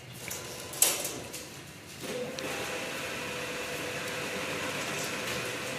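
Cash deposit ATM's note-handling mechanism running as the machine takes in the deposited banknotes: a sharp click a little under a second in, then from about two seconds a steady mechanical whir with a hum.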